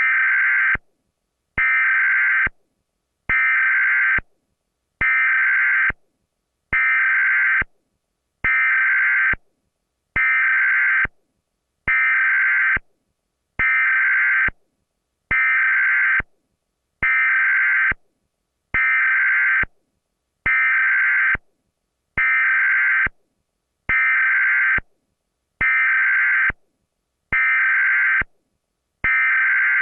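Emergency Alert System digital header tones (SAME data bursts) repeating over and over: loud screechy bursts of about a second each, separated by short gaps, about one every 1.7 seconds.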